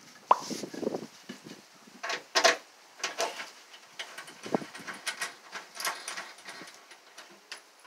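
Irregular knocks, taps and scrapes of wooden 2x4 bed supports being handled and set against the van's bare sheet-metal wall, with the sharpest knocks just after the start and about two and a half seconds in.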